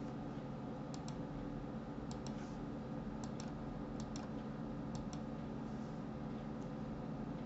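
Computer mouse clicking: about five pairs of short sharp clicks, roughly a second apart, over a steady low hum.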